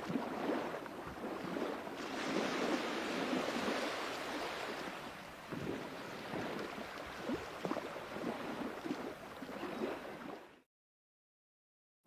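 Sea waves washing onto a shore: a steady rush of surf with rolling swells. The sound cuts off suddenly to complete silence near the end.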